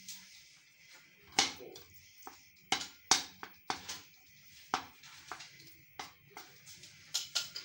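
A silicone spatula knocking and scraping against a steel kadhai while ghee melts in it. The strokes come irregularly, about a dozen sharp taps with a brief metallic ring.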